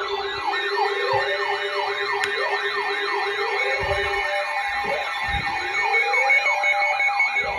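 Several electronic sirens sounding at once: a fast yelp sweeping up and down about four times a second over slower rising wails and steady tones.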